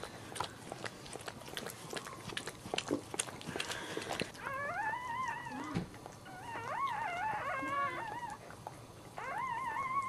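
Dachshund mother licking a newborn puppy, a run of small wet clicks. From about four seconds in, newborn dachshund puppies squeal and whine in high, wavering cries that rise and fall, in several bouts.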